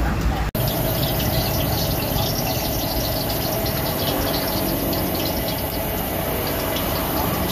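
Gas wok burner running with a steady rushing noise under a wok, with light irregular sizzling and crackling from the pan. The sound cuts out briefly about half a second in, then runs on evenly.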